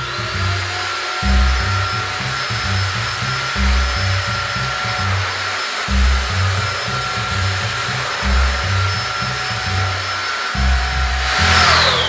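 BUTURE JR700 cordless stick vacuum cleaner running with a steady high whine over a rush of air, then switched off near the end, its motor winding down in a falling whine.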